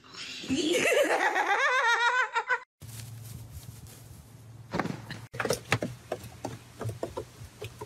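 A high, wavering voice for about two and a half seconds that cuts off abruptly. Then a low steady hum with scattered clicks and knocks.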